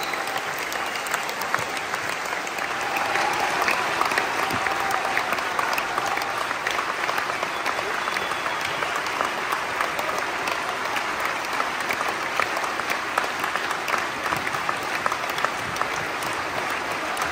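Large audience applauding at a circus finale, a dense, steady patter of many hands clapping that grows a little louder about three seconds in.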